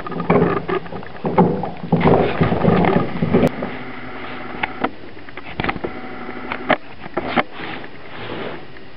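A dog moving about on a hardwood floor and into a wire crate: scuffling and rustling for the first few seconds, then scattered sharp clicks and knocks.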